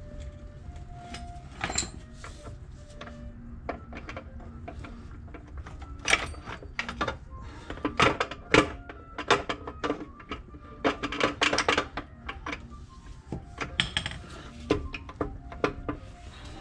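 Hand tools clinking and tapping against the metal of a Rolls-Royce Phantom I's bell housing and its studs as the lower section is fitted, in irregular sharp knocks with a dense flurry in the middle. Faint music plays underneath.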